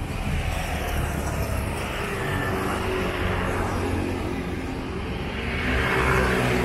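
Street traffic: motor vehicles running and passing along the road, with a louder one drawing close near the end.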